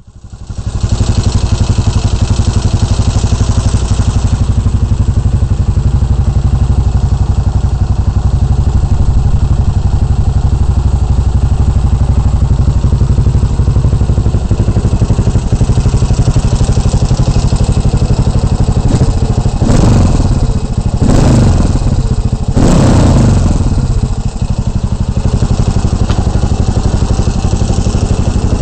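Motorcycle engine idling loudly with an even, lumpy beat, blipped three times in quick succession about twenty seconds in before settling back to idle.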